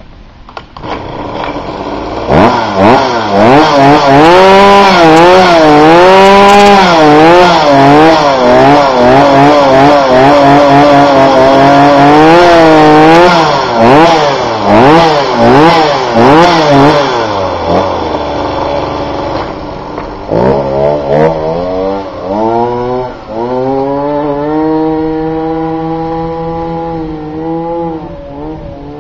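Goped G2D Sport scooter's small two-stroke engine revved hard over and over while standing, its pitch swinging up and down. It drops low for a few seconds, then the scooter accelerates away, its pitch climbing steadily as the sound slowly fades.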